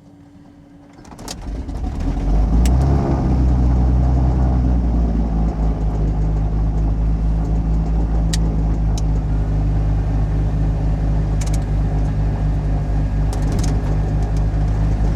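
Beechcraft Baron's six-cylinder piston engine starting: it catches about a second in, builds up over a second or two and settles into a steady idle, with a few sharp clicks over it.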